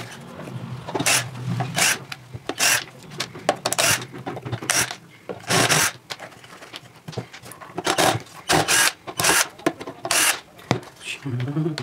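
A string of short, irregular scraping and rubbing bursts as screws are backed out of a wooden speaker cabinet's back panel with a cordless drill-driver and the panel is handled.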